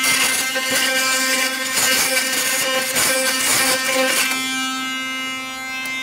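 Modified electric toothbrush, used as a vibrating lock pick, buzzing steadily with its tip in a doorknob lock's keyway. A fast clattering rattle of the tip against the pin tumblers rides over the buzz for about the first four seconds, then the buzz goes on alone.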